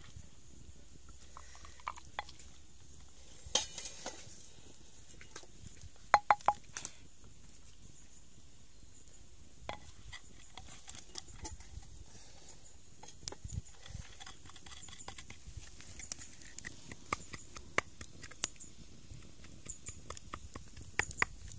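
Wooden pestle knocking and scraping in a stone mortar as chili sauce is pounded: irregular sharp knocks, with a cluster of louder ones about six seconds in.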